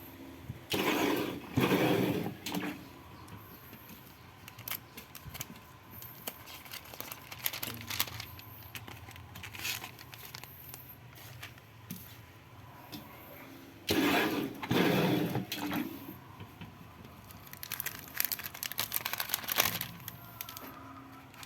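Semi-automatic plastic-bag screen printing machine running through its print cycle: two loud mechanical strokes about thirteen seconds apart, with clicks and plastic rustling between them.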